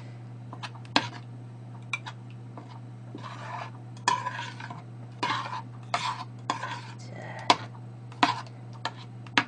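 A metal spoon stirring rice porridge in a stainless steel pot, with irregular clinks and scrapes against the pot, over a steady low hum.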